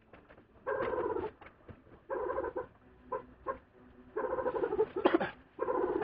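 Rubber squeaking in short repeated squeals, about five, each around half a second, as a Honda GL1100 Goldwing carburetor is wiggled and pulled free of its rubber intake joint.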